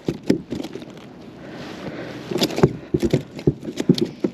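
Irregular knocks, taps and scrapes, the handling noise of a just-landed snapper being dealt with, thickest in the second half.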